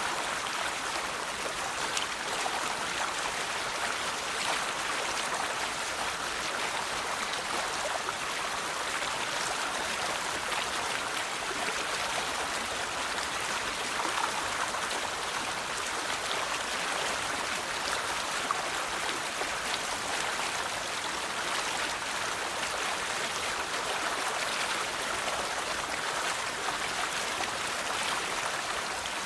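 A river flowing over rocks: a steady rush of water with small splashes and trickles scattered through it.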